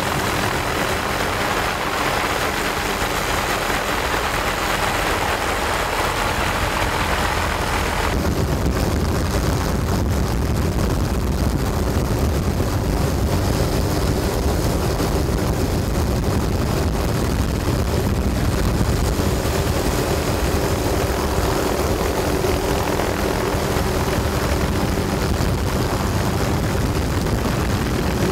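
Steady aircraft engine and propeller drone, heard from on board. About eight seconds in it changes abruptly, losing some of its hiss and turning deeper.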